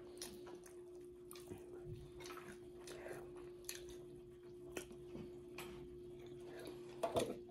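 Faint mouth sounds of eating chicken off the bone: scattered small clicks and smacks of chewing, over a steady faint hum.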